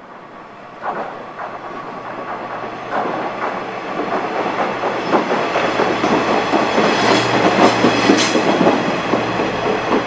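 Diesel railcar approaching along the track, growing steadily louder, its engine humming under the clatter of wheels over the rails.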